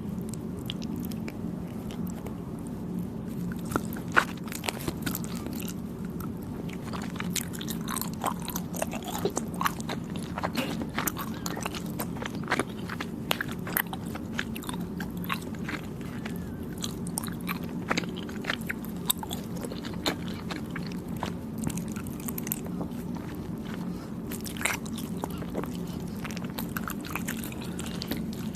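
Close-up chewing of soft, chewy Thai desserts: a steady run of small mouth clicks and bites over a constant low hum.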